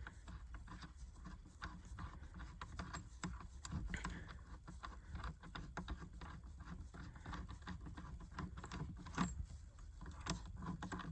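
Ratchet wrench with a 16mm socket clicking in irregular runs while a seat-belt anchor bolt is worked, with light metal rattling.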